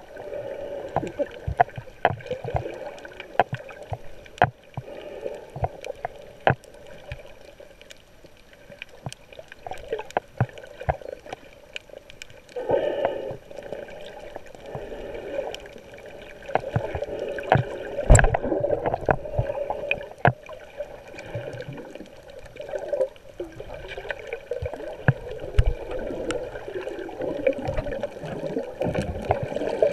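Muffled underwater sound picked up by a GoPro beneath the surface: water moving around the camera as swimmers kick, with frequent sharp clicks and knocks throughout and louder rushing swells about 13 and 18 seconds in.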